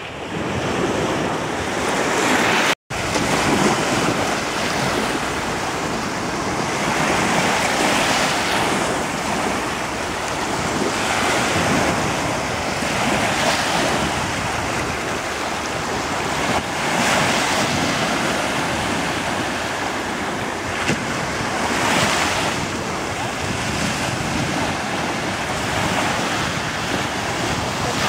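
Small sea waves breaking and washing up a sandy beach, the surf swelling every few seconds, with wind buffeting the microphone. The sound cuts out for an instant about three seconds in.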